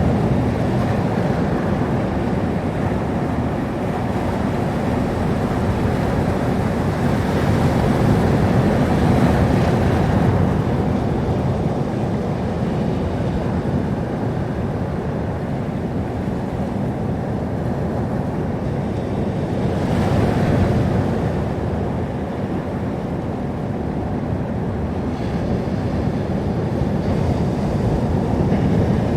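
Sea surf: waves breaking and washing on the shore in a steady rumbling wash, swelling a little a third of the way in and again about two-thirds through, with wind on the microphone.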